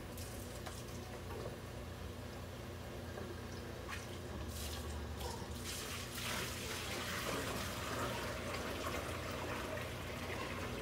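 Kitchen tap water running into a steel sink while a large plastic storage bin is rinsed under it, with water splashing in the bin. The water grows louder about six seconds in.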